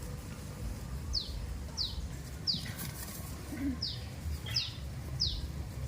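A small bird repeating a short, high chirp that slides down in pitch, six times at a steady pace of about one every two-thirds of a second, over a steady low rumble.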